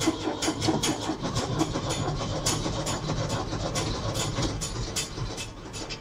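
1975 Ford 550 backhoe's diesel engine being cranked by the starter on a cold start, turning over in an even rhythm and wanting to go but not yet catching. The cranking stops near the end.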